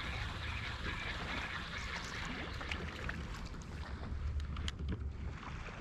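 Steady wind noise on the microphone over soft water sounds around a kayak, with a few faint clicks and ticks scattered through the middle and later part.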